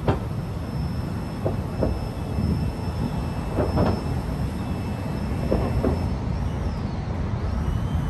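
Airbus A321neo jet airliner passing low overhead, its engines giving a loud, steady rumbling roar with a thin high whine running through it.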